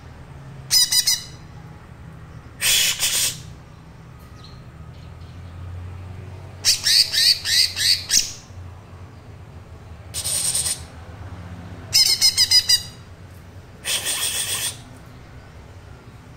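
A young green leafbird (cucak ijo) practising its still-unformed song: six short bursts of calls, two of them runs of quick falling notes, about a third of the way in and again near the three-quarter mark.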